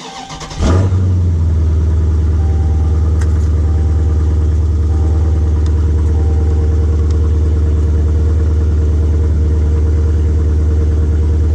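Dodge Challenger SRT 392's 6.4-litre Hemi V8 cranked by the starter and firing up under a second in, then idling loud and steady.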